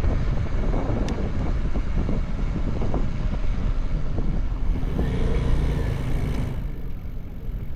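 Road traffic heard from a moving bicycle: a steady, loud low rumble of passing vehicles, easing somewhat near the end.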